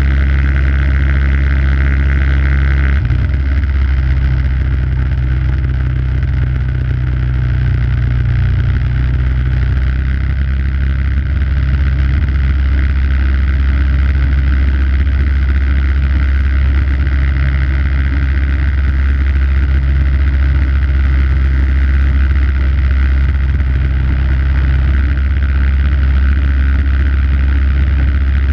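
The 5 hp engine of an MTD snowblower running steadily under load while it clears snow, its tone shifting slightly about three seconds in.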